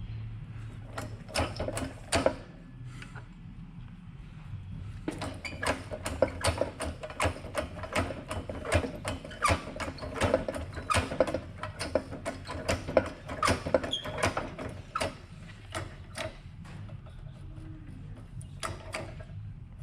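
Irregular metallic clicks and knocks from sockets and press tooling being handled and worked while a new ball joint is pressed into an ATV's upper control arm. The clicks come thick and fast from about five seconds in, over a low steady hum.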